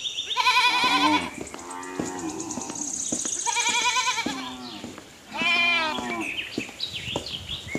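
Cattle mooing: three long, wavering calls, about a second apart from one another, the last one rising and then falling in pitch.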